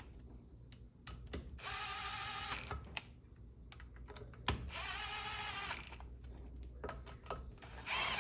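Power drill spinning in two short runs of about a second each, around two and five seconds in, driving bolts back into a small engine. Small clicks of tools and parts are heard between the runs.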